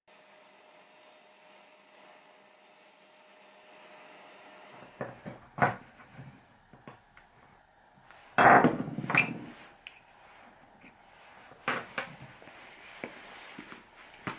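Pine parts of a homemade strap winder being fitted together and set down on a wooden workbench: scattered sharp knocks and clacks of wood on wood. The first few seconds are faint room tone with a thin steady hum, and the loudest knocks come in a cluster just past halfway.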